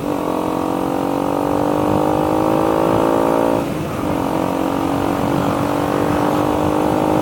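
KTM Duke 125's single-cylinder four-stroke engine through an aftermarket full exhaust system, pulling steadily under way with slightly rising revs. Short throttle lifts for gear changes break it near the start and about halfway through.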